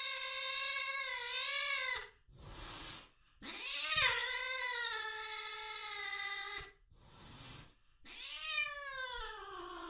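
Cat yowling: three long, drawn-out, wavering yowls of a few seconds each, with short breathy gaps between them.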